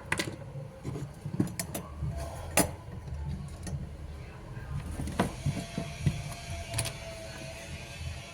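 Irregular sharp clicks and taps over a steady low rumble, with a faint steady hum coming in about five seconds in.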